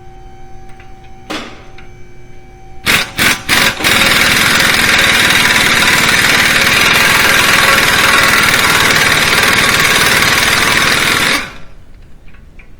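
Impact gun: four short trigger blips about three seconds in, then a steady rapid hammering for about seven seconds that stops suddenly, working on the BMW E90 front wheel hub's mounting bolts.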